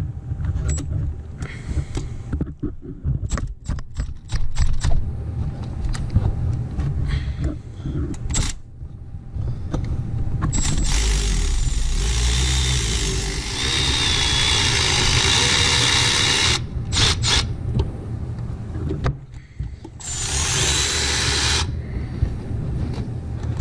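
Power tool running on a stuck tensioner bolt in two long stretches, about ten seconds in and again near the end, until the bolt turns loose. Before that, hand tools clink and click against the engine.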